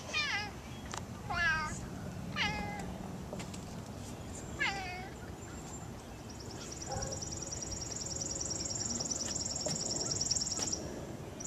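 Domestic cat meowing four times in quick succession, each short meow dropping in pitch at its end.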